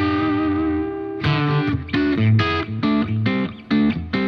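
Electric guitar played through a Diezel Schmidt amp's second channel: a chord rings for about a second, then a run of separately struck chords and notes, and another chord is held near the end.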